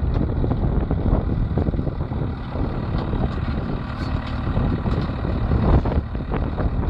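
Hay baler running, its machinery clattering with irregular knocks over a steady engine drone.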